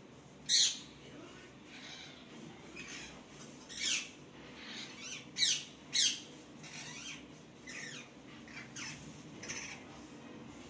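Pet parrot squawking: a string of short, sharp, high calls, the loudest about half a second in, near four seconds and twice in quick succession around five and a half to six seconds, with softer chirps in between.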